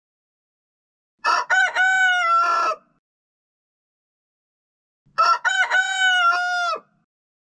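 A rooster crowing twice, each crow about a second and a half long.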